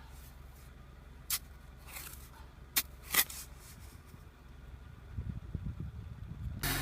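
Car engine running low and steady, with a few sharp clicks. Near the end the engine rumble swells and a loud rushing noise begins as the stuck car is driven.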